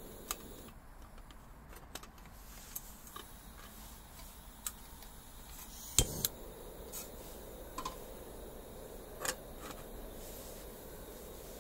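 Scattered light clicks and taps, the sharpest about six seconds in, over a faint steady hiss.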